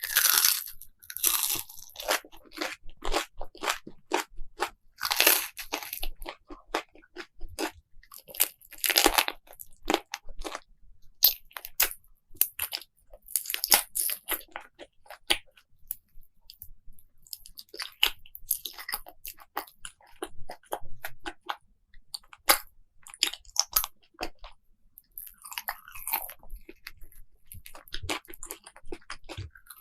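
Close-miked eating: crisp food being bitten and chewed, with rapid irregular crunches and crackles and a few brief pauses.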